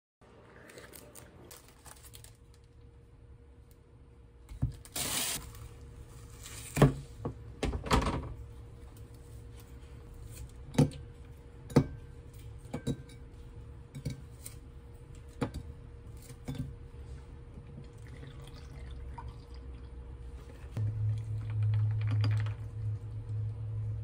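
Frozen milk cubes pushed out of a silicone ice tray one by one, each knocking into a tall glass with a sharp click about a second apart. Near the end comes a steady low hum, with liquid poured over the cubes to make an iced latte.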